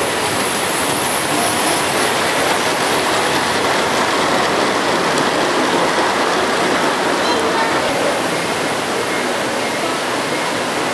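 Large-scale model train running past on its track, over a steady rushing noise like falling water mixed with background voices.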